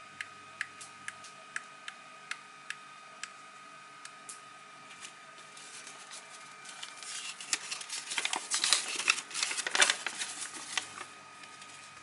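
Small sharp clicks, about eight in the first three seconds, from the buttons of a four-button universal copy remote for gates and garage doors being pressed. Then, from about six seconds in, paper and plastic rustle loudly for several seconds as the folded paper instruction sheet is opened out.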